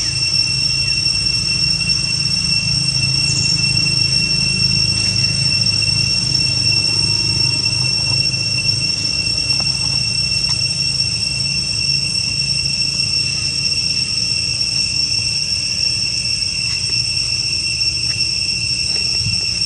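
A steady, high-pitched insect drone of two even tones, over a low rumble.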